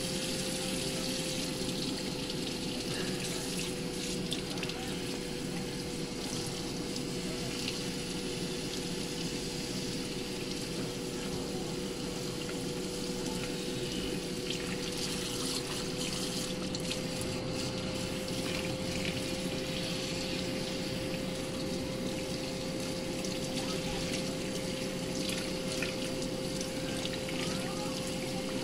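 Kitchen faucet running steadily into a stainless steel sink, the stream splashing over a kitten being washed, with a steady hum underneath.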